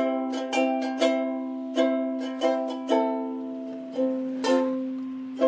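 Ukulele music in a stretch without singing: a run of plucked notes and chords, each ringing out and fading, over a held low note.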